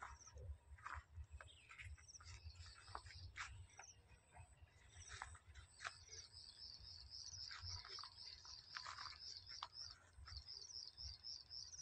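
Quiet open-field ambience: faint high chirps, scattered at first, then from about six seconds in one chirp repeating evenly about three to four times a second, over a low rumble of wind on the microphone.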